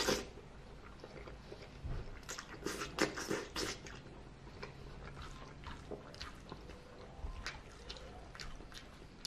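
A man slurping spaghetti noodles and chewing: a burst of slurping at the very start and a run of loud slurps about two to four seconds in, then quieter wet chewing clicks.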